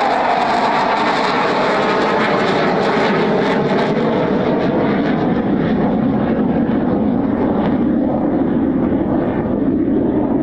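Loud, steady jet noise of an F-15 fighter's twin turbofan engines on a flyby. The pitch slowly falls and the high hiss thins out as the jet moves away.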